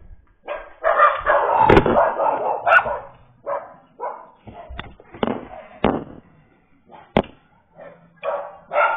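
Dogs barking repeatedly, loudest and densest in the first few seconds, then in shorter separate barks, with a few sharp clicks or knocks among them.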